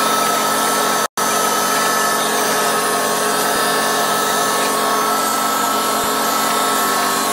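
Shoe-repair finishing machine running: a steady motor whine over hiss as the leather and crepe edge of a boot sole is smoothed on its sanding wheel and belt. The sound drops out for an instant about a second in.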